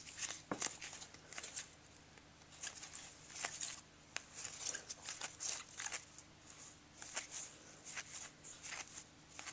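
A baseball card pack being handled and opened, and the cards shuffled through by hand: a run of faint, short, crisp rustles and clicks of wrapper and card stock, coming in irregular clusters.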